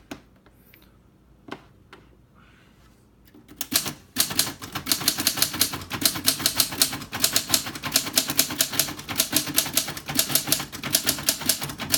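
Manual portable typewriter, a 1941 Smith-Corona Comet, being typed on quickly: after a couple of single clicks, a fast run of key and typebar strikes starts about three and a half seconds in, several a second.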